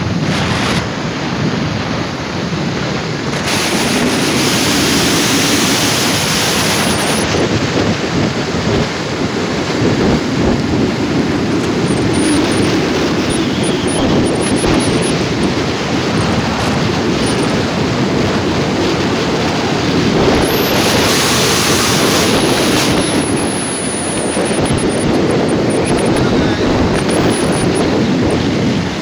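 Steady rush of wind buffeting the microphone of a motorcycle riding at speed, with road noise underneath. The hiss swells brighter twice, about four seconds in and again around twenty seconds in.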